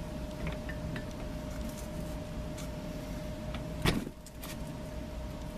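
Light clicks of greased metal winch gearbox parts being handled and fitted, with one sharp knock about four seconds in, over a steady faint hum.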